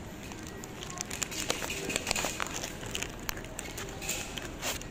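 Crinkling and clicking handling noise close to the microphone, a quick irregular run of small crackles over a steady background hum.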